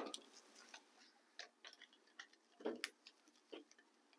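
Near silence with faint, scattered small clicks and ticks from hands handling stranded copper wire at its spool.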